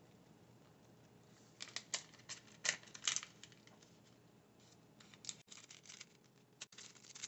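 Thin plastic packet of shredded Parmesan crinkling in short bursts as it is squeezed and shaken, the cheese sticking inside and not coming out. The loudest crinkles come about three seconds in.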